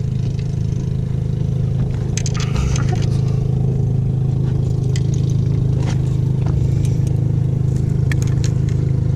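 Steady low drone of a boat engine running nearby, with scattered short clicks and scrapes from the landing net and rod being handled.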